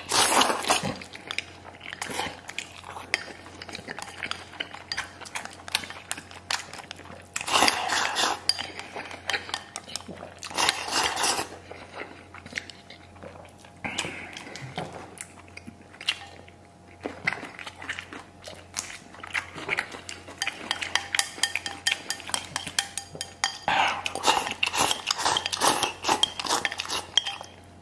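Wooden chopsticks clicking and scraping against a ceramic rice bowl as rice and braised pork are shoveled into the mouth, with close-up eating sounds. There are many small clicks throughout and louder scraping spells now and then, the longest near the end as the bowl is raised to the mouth.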